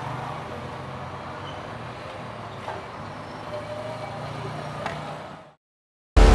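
Steady background road-traffic noise with a low engine hum and a couple of faint clicks. It fades out to silence about five and a half seconds in, and loud music cuts in at the very end.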